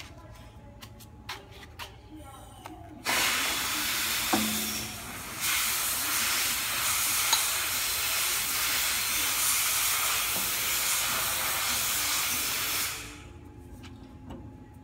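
Compressed air hissing from a paper baking-cup machine's pneumatic line. It starts abruptly about three seconds in, runs steadily for about ten seconds and dies away near the end, with a few light clicks before it.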